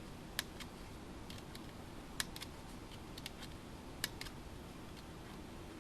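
Scattered light clicks, three of them sharper, from a turnbuckle and its ball cups being turned and handled while a camber link is adjusted on an RC car, over faint hiss.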